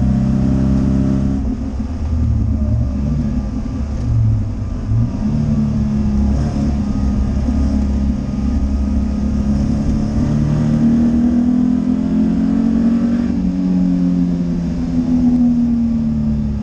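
MGB Roadster's four-cylinder B-series engine heard from inside the cabin while it is driven hard around a circuit. Its pitch drops and climbs with throttle and gear changes in the first few seconds, holds high through the middle, and falls away near the end.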